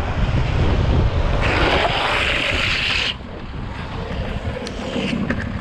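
Rumble of longboard wheels on asphalt under wind rushing over the camera microphone during a downhill run. A bright hiss comes in about a second and a half in and cuts off suddenly about three seconds in, after which the sound is quieter.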